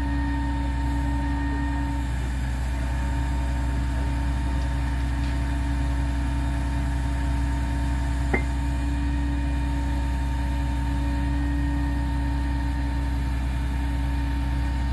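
Rail grapple truck's engine running steadily with a steady whine over it as its crane swings and lowers a stick of rail. A single sharp tick about eight seconds in.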